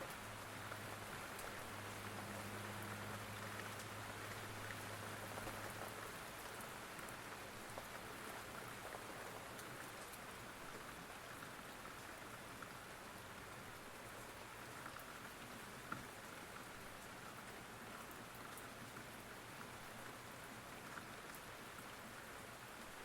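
Steady rain falling, an even hiss with scattered drop ticks. A low steady hum runs underneath for the first six seconds or so.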